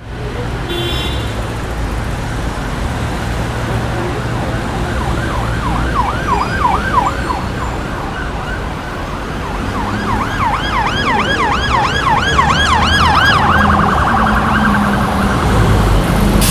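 Emergency vehicle siren in a yelp pattern, a rapid rising-and-falling wail about four times a second, heard in two stretches and quickening briefly near the end. Underneath is a steady low rumble of engines and traffic.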